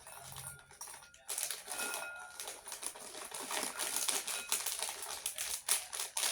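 Plastic snack packets being handled and torn open: a dense, irregular run of crinkling crackles.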